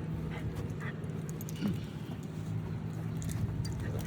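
Dogs panting as they walk together on leashes, over a steady low hum.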